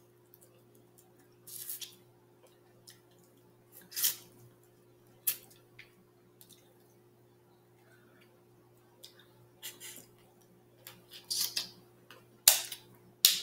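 Snow crab leg shells cracking and snapping as they are broken apart by hand, heard as short, sharp crackles at irregular intervals, several in quick succession near the end, over a faint steady hum.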